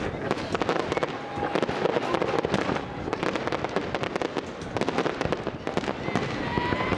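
Fireworks display: aerial shells bursting, with a dense, continuous crackle of many rapid pops.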